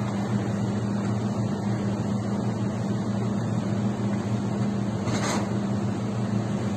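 Steady low hum of running machinery, with a brief scraping rustle about five seconds in.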